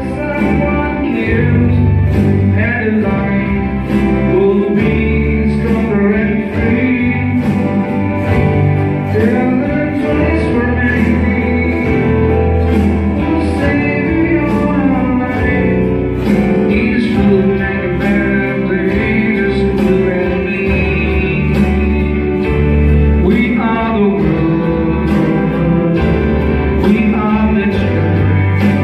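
Music played on electronic keyboards, with a singing voice over a steady drum beat.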